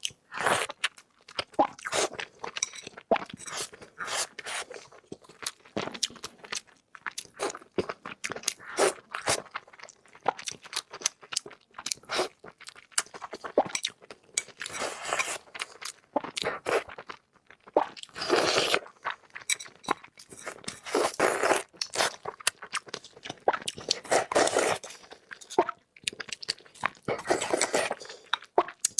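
A person biting and chewing grilled pork chops with rice. There is a steady run of wet crunches and clicks from the chewing, with louder bursts of crunching now and then.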